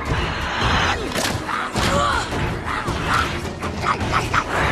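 Animated-film action soundtrack of a fight in a rainstorm: short shrieks and cries that slide in pitch, a quick flurry of thuds and hits, over a steady bed of rain and music.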